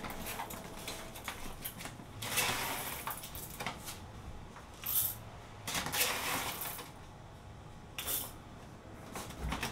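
Whole coffee beans being scooped out of a paper bag and dropped into a cup on a kitchen scale, with the bag rustling, in a few short bursts of rustling and rattling.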